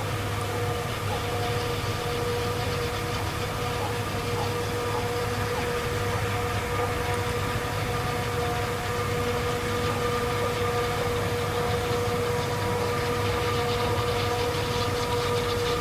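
Heavy diesel farm machinery running steadily during corn silage harvesting: a low engine drone with a steady whine on top.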